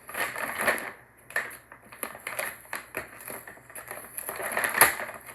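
A bag crackling and rustling in irregular bursts as cats scratch, push and tear at it from inside and outside, with a sharper loud crackle near the end.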